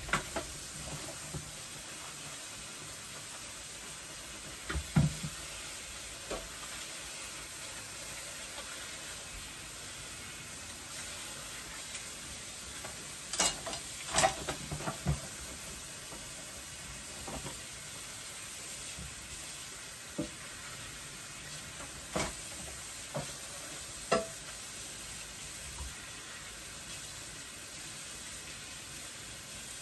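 Dishes being washed by hand at a kitchen sink: a steady hiss of running tap water with scattered clinks and knocks of dishes and pans, a cluster of them about 13 to 15 seconds in.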